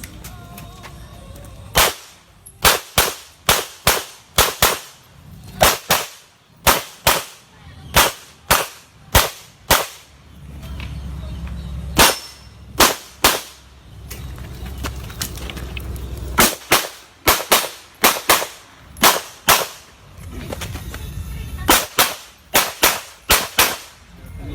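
Glock 9mm pistol fired in rapid strings, mostly quick pairs and groups of three or four shots. The shots are broken by three longer pauses, around the middle and toward the end, in which a low rumble is heard.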